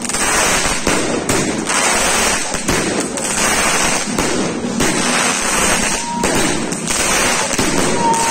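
16-shot consumer fireworks cake (Leegendary Fireworks 'Insight') firing, with a dense, continuous crackle of bursting stars and brief lulls every second or two.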